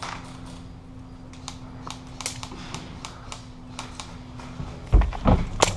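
Scattered, irregular sharp clicks and snaps of airsoft gunfire and BBs striking, with two loud thumps and a quick cluster of clicks near the end.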